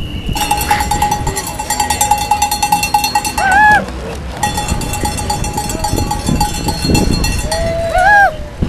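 Cowbell rung rapidly and steadily, a dense run of clanks over one ringing tone, as heard at a roadside cycling crowd. Two short whoops cut through it, about three and a half seconds in and again near the end, and are the loudest moments.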